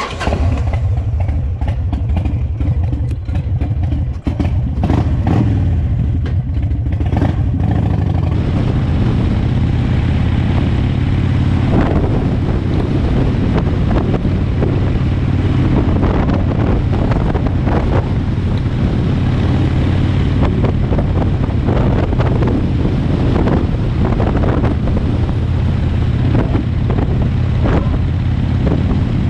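Harley-Davidson Sportster's air-cooled V-twin engine running, starting loud and uneven as the bike sets off. After about eight seconds it settles into steady riding at road speed, with wind rushing over the helmet-level camera microphone.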